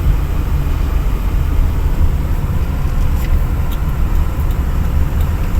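Strong dust-storm wind blowing against the microphone: a loud, steady low rumble with a rushing hiss over it.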